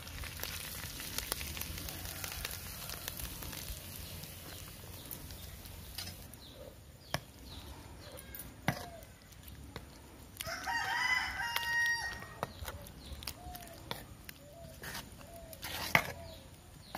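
A rooster crows once, a call of about two seconds a little past the middle, and a few short clucks follow. Around it, a ladle scrapes and knocks against the metal pot of thick khichdi being stirred, with sharp knocks, the loudest near the end.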